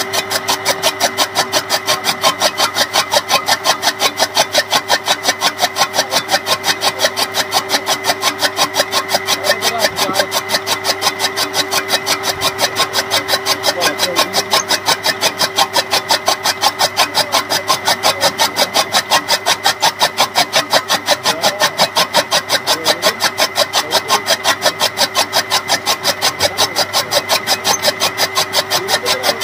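A motor-driven toka chaff cutter chopping green fodder: the flywheel's blades cut in rapid, even strokes several times a second over the steady whine of the running motor.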